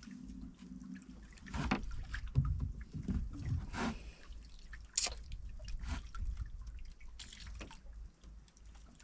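Water splashing and dripping against a fishing boat, with scattered knocks and clicks. A low hum stops about a second in, and a sharp click about five seconds in is the loudest sound.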